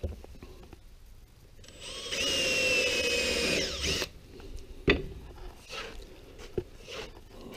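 A Makita cordless drill runs for about two seconds, drilling a pilot hole into a wooden chair slat, its whine sagging slightly in pitch as the bit cuts. A few light knocks of wood and tool follow.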